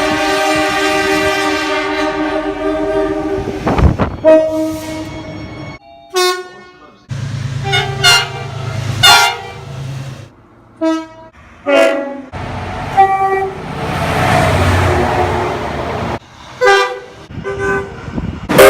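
Train horns: a long blast of several tones sounding together for about four seconds, then a string of short toots and blasts from different trains, cut together with abrupt breaks, some over the low rumble of a passing train.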